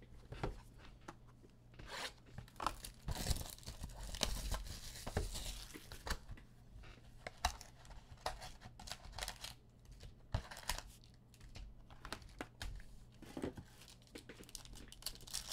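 Plastic shrink-wrap being torn and crinkled off a trading card box by hand, in irregular crackles and short tearing rasps, followed by the cardboard box being opened and its packs handled.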